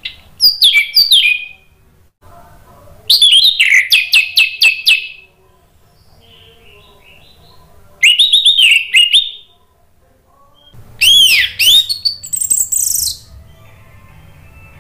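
Orange-headed thrush (anis merah) singing: four loud bursts of quick, high, sweeping whistled notes, each one to two seconds long, separated by short pauses.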